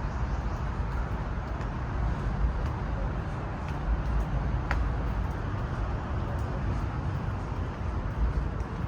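Steady hiss and rumble of road traffic, with an uneven low rumble underneath.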